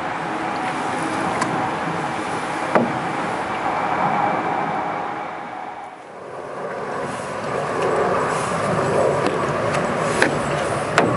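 Wind buffeting the microphone, with paddle strokes in the water beside a canoe and a few sharp knocks of the wooden paddle against the hull. The noise dips briefly about halfway through, then swells again.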